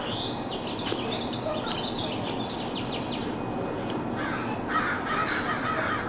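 Wild birds chirping: a quick run of short high chirps, then a lower, denser chattering in the last two seconds, over steady outdoor background noise.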